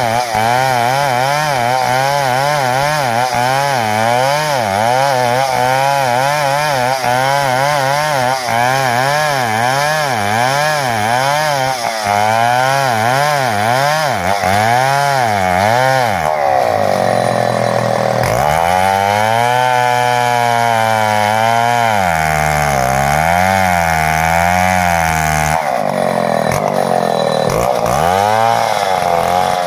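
Chainsaw ripping a jati belanda log lengthwise into a board. The engine runs hard under load, its pitch wavering up and down steadily as the chain bites, and it climbs higher for a couple of seconds a little past halfway and again near the end.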